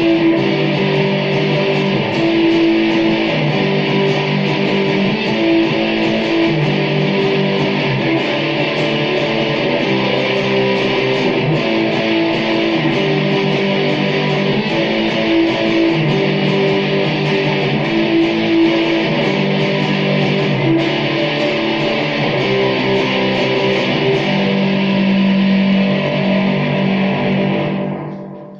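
2017 Epiphone Les Paul SL electric guitar being played, a continuous passage of changing notes and chords, dying away near the end.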